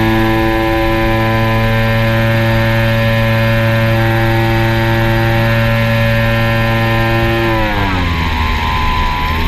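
Multirotor drone's motors and propellers whining at a steady pitch, which drops as the throttle eases about eight seconds in and rises a little again near the end.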